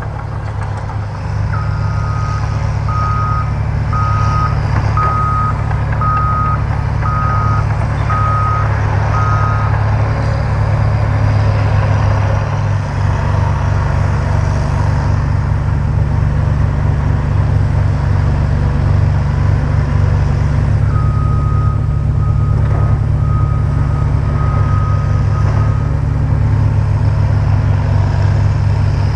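Caterpillar 963B track loader's six-cylinder diesel engine running steadily under work, with its backup alarm beeping about once a second as it reverses: a run of about eight beeps a couple of seconds in, and another run of beeps past the middle.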